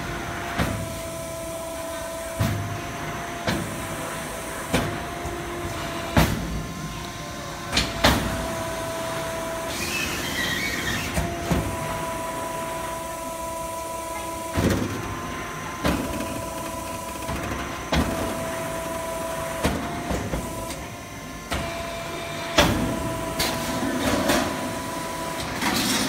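Pneumatic duct folding machine on an HVAC duct production line bending a galvanized steel sheet into an L-shaped duct half. A steady motor whine switches on and off repeatedly, with sharp metallic knocks every second or two as the clamps and folding beam move and the sheet bends.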